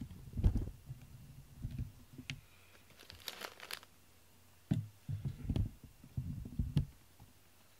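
Close-up rumbling bumps and a brief rustle from a black cat pressed against the microphone, its fur brushing the mic.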